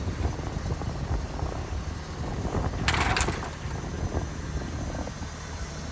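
Crane's engine running with a steady low rumble as it lifts roof trusses, with a brief sharp hiss about three seconds in.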